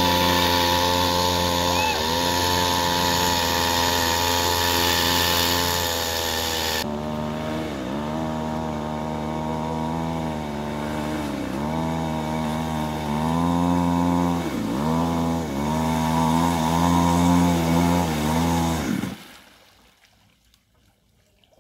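Two-stroke chainsaw engine powering a homemade plastic-bottle boat, running steadily, then its speed dipping briefly several times. It cuts off about nineteen seconds in, leaving near silence.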